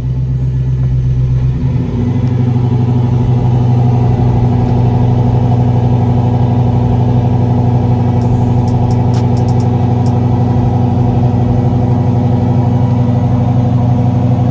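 The 1987 Monte Carlo SS's V8 engine running steadily close by, holding an even note throughout.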